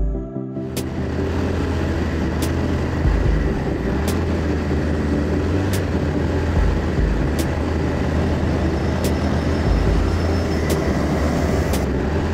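Racing go-kart running on track: a steady, loud engine and road noise with no clear revving, broken by sharp clicks about every one and a half seconds.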